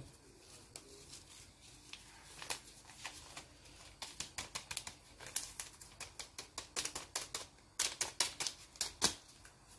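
Paper sachets of Alsa baking powder being crinkled and torn open by hand: a rustle, then a busy run of quick, irregular crackles and clicks from a couple of seconds in.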